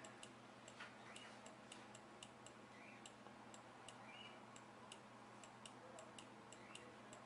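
Faint, quick clicks of a computer mouse's scroll wheel turned steadily, about three clicks a second, over near-silent room tone.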